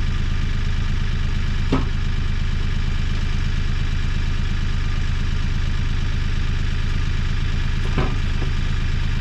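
Small gasoline engine running steadily at a constant speed, with two short knocks, one about two seconds in and one near the end.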